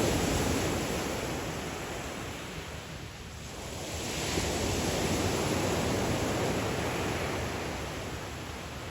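Sea surf washing onto the shore: waves breaking and drawing back, swelling to a peak about four seconds in and then ebbing away.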